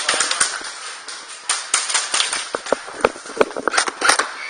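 Airsoft gunfire at close range: a flurry of sharp, irregular pops and cracks, with the loudest shots about three and four seconds in.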